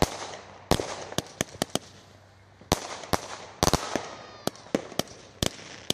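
A 200-gram consumer fireworks cake firing its shots: about a dozen sharp bangs at uneven spacing, some bunched close together, each followed by a brief crackling tail, with a short pause around two seconds in.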